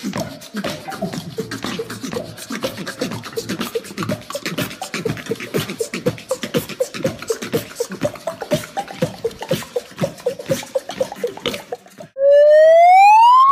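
Live beatboxing: fast mouth clicks, hi-hat-like hisses and short pitched bass pulses in a steady groove. About twelve seconds in it cuts to a loud siren tone rising in pitch.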